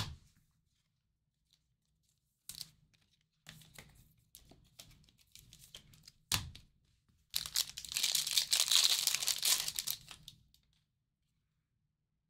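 A trading card pack's wrapper handled and crinkled, with a couple of sharp snaps, then torn open in one loud tear of about three seconds, starting about seven seconds in.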